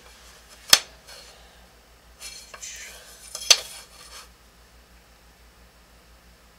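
Hard plastic drafting tools, a scale ruler and a triangle, clicking sharply against each other and the drawing table twice, with a short scrape as the scale is slid into place between the clicks.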